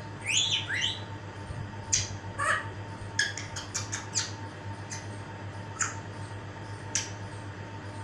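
African grey parrot calling: a few quick rising whistles just after the start, a short squawk about two and a half seconds in, then a run of sharp clicks.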